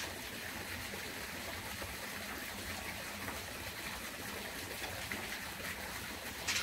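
A steady rushing, water-like hiss, with a sharp click or two near the end.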